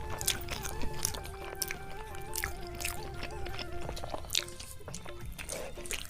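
Background music with a slow, stepping melody, over close biting and chewing sounds from people eating chicken biryani, with many short sharp clicks from mouths and food.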